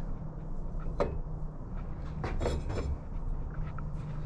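A sharp click about a second in, then a short clatter of knocks near the middle, over a steady low hum. The sounds are those of the drill press's fittings being handled.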